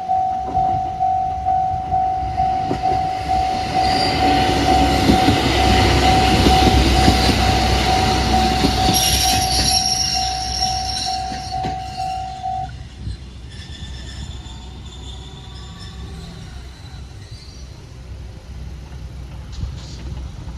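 Japanese level-crossing warning bell ringing in a steady single tone, about two strikes a second, while a diesel railcar runs over the crossing with wheel rumble and squeal. The bell stops about 13 seconds in, and the train's rumble carries on more quietly.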